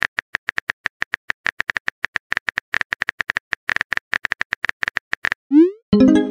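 Texting-app keyboard typing clicks, rapid and even at about eight a second, stopping a little over five seconds in. A short rising swoop follows, then a pitched message tone as the new chat message pops up.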